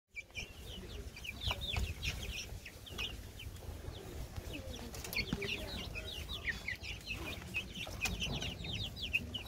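Young chickens peeping and cheeping constantly as they feed from a metal trough, many short, slightly falling high calls, over a low rumble.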